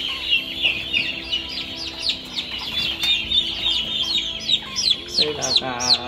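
Many young turkey poults peeping, a rapid stream of short, high, falling peeps. About five seconds in, a louder, lower call joins in.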